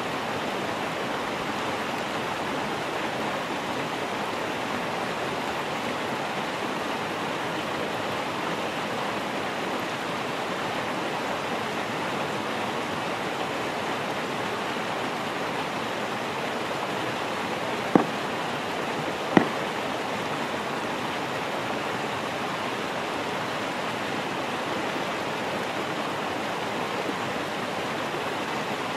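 Steady rushing of a mountain stream. About two-thirds of the way through, two sharp clicks come a second and a half apart.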